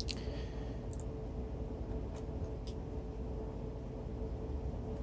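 Steady low hum with a thin constant tone from the 400 W three-phase alternator running as a motor on a controller, with four light clicks scattered through it.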